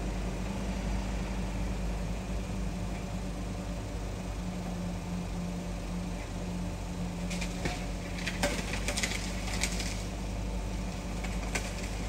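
Steady hum of an idling car with its air conditioning running, with a cluster of short clicks and rustles from about seven seconds in.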